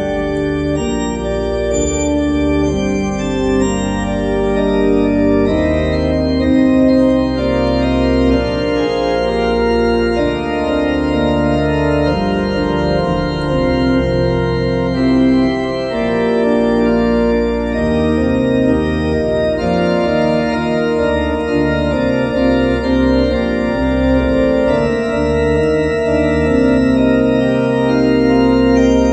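Organ playing held full chords over a deep pedal bass, the chords changing every second or two.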